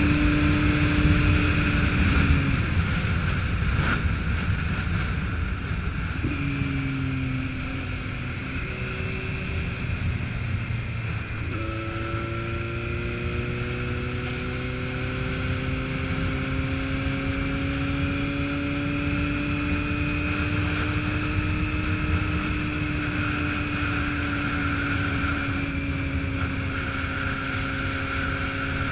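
Motorcycle engine running while riding, with a steady rush of wind and road noise: the engine note drops away about two and a half seconds in, then from about twelve seconds in climbs slowly and holds a steady cruising note.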